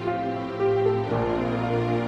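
Instrumental music: an electronic keyboard playing a slow, nostalgic Taiwanese oldie melody in sustained notes over a steady bass, with a change of chord about a second in.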